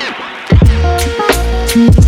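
Electronic background music with a steady beat of heavy bass kicks, snare hits and short synth notes, dropping out briefly about half a second in before the beat comes back.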